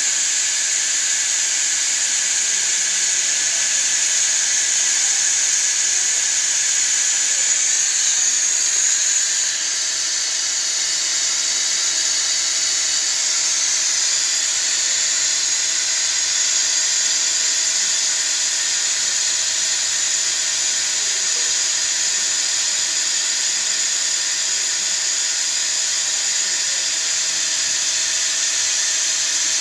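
Steady high-pitched machine hiss with a thin steady tone beneath it, easing slightly about a third of the way in: workshop machinery or air running continuously.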